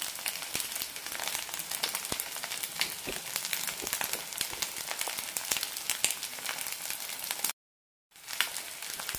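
A vermicelli and egg omelette mixture sizzling as it fries in a little oil in a nonstick pan, with many small pops. The sizzle drops out completely for about half a second near the end.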